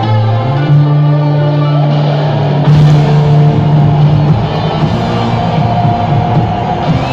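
Loud rock music over the arena sound system: long held guitar notes, with a fuller band sound and drums coming in about three seconds in.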